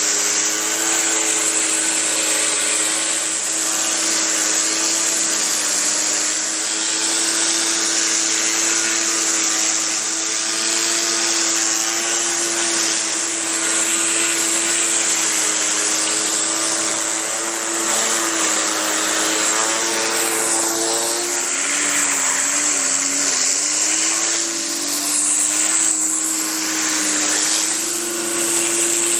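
Westinghouse WPX3400 gas pressure washer running steadily under load, its 212cc four-stroke engine humming under a strong high hiss of water spray. The engine pitch sags briefly about two-thirds of the way through, then recovers.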